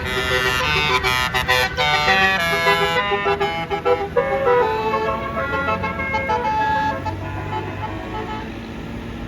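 Bus 'telolet' melody horn playing a fast run of changing notes, loud for about the first seven seconds. It then gives way to a lower steady drone of engine and traffic.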